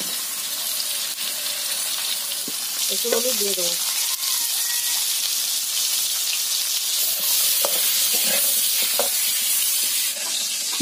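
Potato wedges sizzling steadily in hot mustard oil in a steel karahi, just after being tipped in. A metal spatula stirs and scrapes them against the pan.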